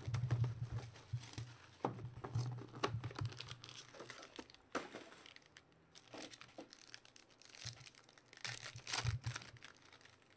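Shiny plastic wrapper of a trading-card pack being torn open and pulled off: irregular crinkling and crackling, with cards being handled. The loudest crackles come a couple of seconds in and again near the end.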